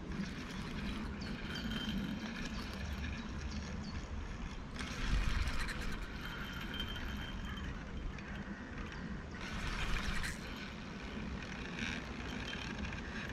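Steady rush of a flowing river with wind rumbling on the microphone and faint bird chirps; two louder rustling noises stand out about five and ten seconds in.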